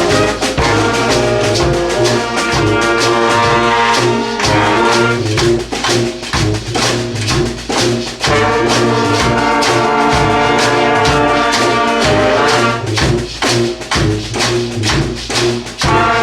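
A community brass band plays a rock anthem together: horns hold sustained chords over a tuba bass line and a steady drum beat. Twice the horns break into choppy, punched passages.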